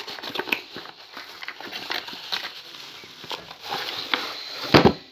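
Cardboard box being opened and handled close to the microphone: scattered rustling, scraping and tapping, with a loud thump near the end.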